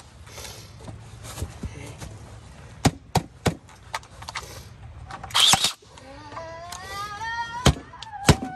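Cordless battery nailer firing nails into plywood: a loud shot about five and a half seconds in, with several sharp knocks of wood and tool before and after.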